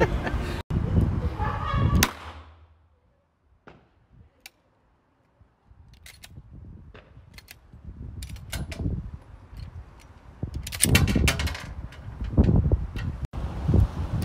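Laughter and voices, then a series of sharp semi-automatic pistol shots at uneven spacing, heavier and louder around two-thirds of the way through.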